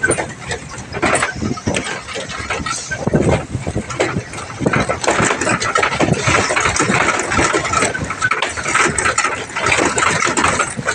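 Truck engine running while riding in the open cargo bed over a rough dirt road, with dense rattling and knocking throughout.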